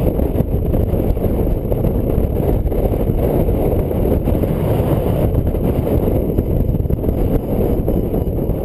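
Wind rushing steadily over the microphone of a paraglider pilot's camera in flight.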